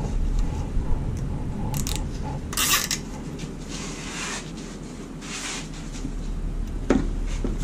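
Plastic cable tie being pulled tight around a wiring harness: a short ratcheting zip about two and a half seconds in, with softer rasps of the tie and the harness in gloved hands after it.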